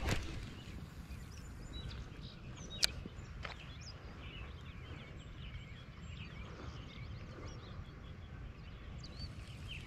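Wind rumbling on the microphone at a lakeside, with birds chirping throughout. A brief thump comes right at the start and a single sharp click a little under three seconds in.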